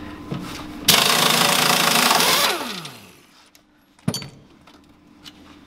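Impact wrench run hard for about a second and a half to undo a bolt, then spinning down with a falling whine as the trigger is released. A single sharp knock follows about four seconds in.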